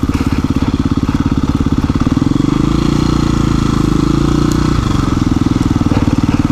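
KTM 350 EXC-F's single-cylinder four-stroke engine running at low speed on a dirt trail, with an even firing pulse. It gets fuller and louder for about three seconds in the middle, then eases back.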